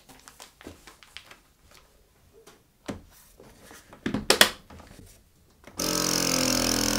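Plastic bag rustling and a few clicks as a countertop vacuum sealer's lid is pressed shut on the bag, with a sharper clack about four seconds in. Near the end the sealer's vacuum pump starts, with a loud steady hum.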